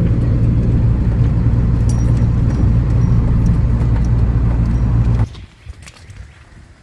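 Vehicle engine idling steadily, then switched off about five seconds in, followed by a few faint clicks and a light jingle of keys.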